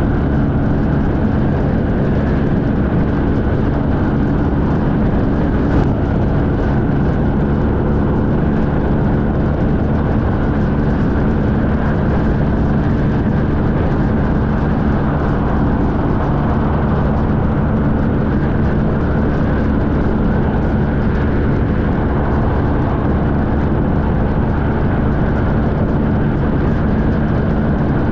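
Honda VFR1200X's V4 engine running steadily at highway cruising speed, with a constant rush of wind and road noise. It stays even and loud, with no change in pitch.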